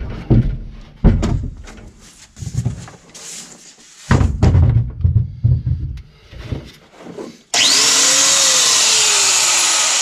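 A series of knocks and clatter. Then, about seven and a half seconds in, a power tool starts abruptly with a rising whine and runs steadily, cutting a hole in the sheet-metal floor of a 1960 Chevrolet Impala.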